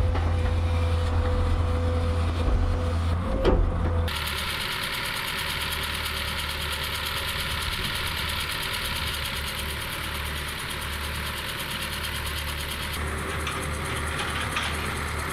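Heavy machinery engines running: a deep, strong engine rumble for about four seconds, then an abrupt change to a steadier, hissier engine sound.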